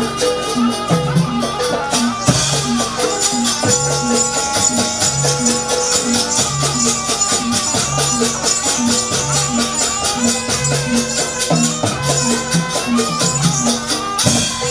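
Jaranan dance music from a live traditional percussion ensemble: regular low beats about once a second under dense drumming and rattling percussion, with a few held melodic tones above.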